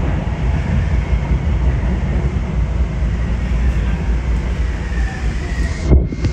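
Miami Metrorail car running on its elevated track: a steady low rumble with a faint whine that falls in pitch as the train slows into a station. A single thump near the end.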